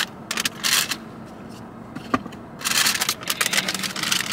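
A paper bag rustling and crinkling as a hand opens it and reaches in for a pastry. There are short crackles near the start, one sharp click about two seconds in, then steady, dense crinkling through the rest.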